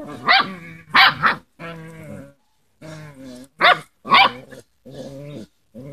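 Alaskan Malamute puppies play-fighting, giving a string of short growls and sharp, high yelping barks, about one or two calls a second with brief gaps between.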